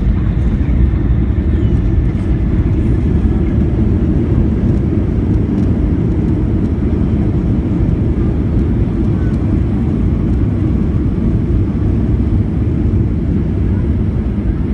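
Cabin noise inside a Boeing 737 rolling on the runway after landing: a steady low rumble of engines and wheels.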